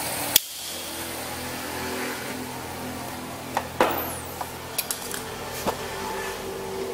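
A sharp click about half a second in, after which a steady machine hum drops to a fainter one. A few light clicks and taps follow in the second half as an oscilloscope probe and its hook tip are unclipped from the welder's inverter board.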